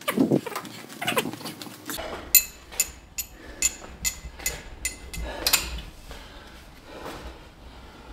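Hard breathing after an exhausting set. Then a series of sharp metallic clicks and clinks, about two a second, as the selector pin of a weight-stack machine is set.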